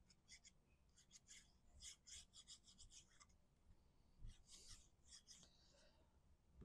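Faint scratchy strokes of a fine-tip glue bottle's nozzle drawn across white cardstock, in several short runs, with a soft bump a little past halfway.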